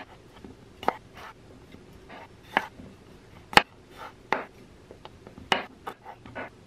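Chef's knife cutting red potatoes into chunks on a wooden cutting board: irregular sharp knocks as the blade strikes the board, with softer slicing and scraping between cuts.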